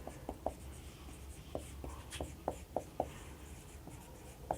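Handwriting: about a dozen short, scratchy strokes of a writing tool on a writing surface, coming unevenly, over a faint steady low hum.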